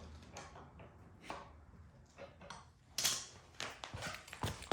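Scattered light clicks and knocks of a hand wrench and metal parts being handled while a wheel is fitted to an air compressor, the sharpest knock about three seconds in.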